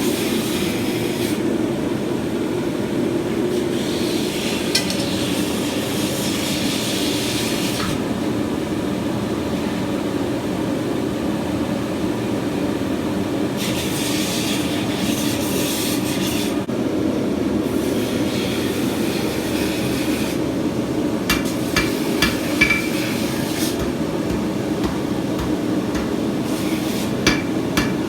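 Blacksmith's forge running with a steady rushing hum. A short cluster of sharp metal clinks, hammer on hot steel, comes about three quarters of the way through, and one more near the end.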